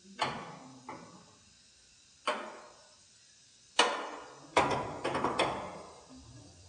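Sharp knocks and clanks on a car's sheet-metal body, each with a short ring, at uneven intervals and with three in quick succession in the second half: trim and body parts being worked loose from an old Toyota Land Cruiser.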